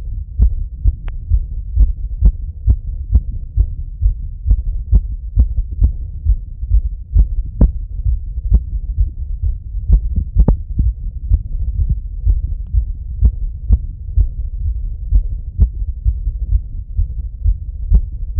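A man's heartbeat heard through a Littmann stethoscope chest piece: quick, regular low thuds, about two to three a second, raised by running.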